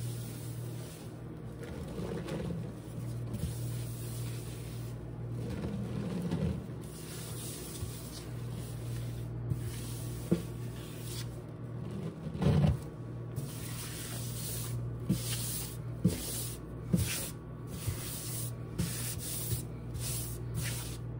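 Dry cleaning powder being squeezed and rubbed by hand, probably in a sponge: a run of soft gritty rubs and squishes, with a louder crunchy stretch about halfway through and short sharp crackles in the second half.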